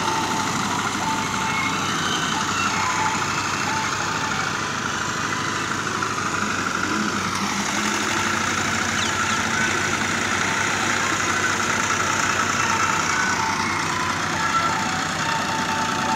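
Diesel tractor engines of a Ford 3610 and an HMT 2511 running steadily under load as the tractors drag rear levelling blades across ploughed soil.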